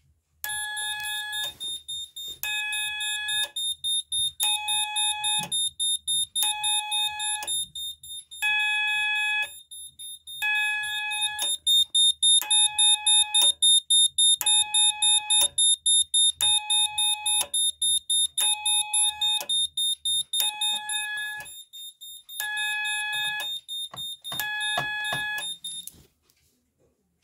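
Moose Z900 alarm system sounding in fire mode: a pulsed beep about once every two seconds, each beep about a second long, over a steady high-pitched tone with fast ticking. It stops suddenly near the end.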